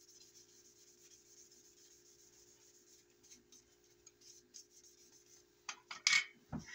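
Paper towel rubbed firmly over a freshly dye-stained wooden revolver grip panel, a faint dry scuffing, over a steady low hum. Near the end a few sharp knocks and scrapes as the grip is handled and set down on the wooden board.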